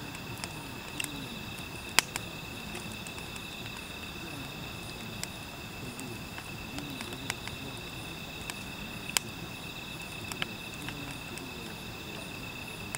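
Wood fire in a metal fire basket crackling, with sharp pops about two seconds in and again about nine seconds in, over steady high-pitched insect trilling.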